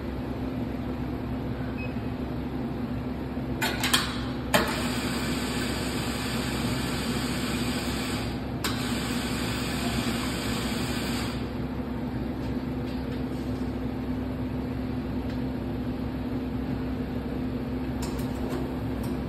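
Espresso bar equipment: a steady mechanical hum, two sharp clicks about four seconds in, then about seven seconds of hissing whir that cuts off suddenly past the middle.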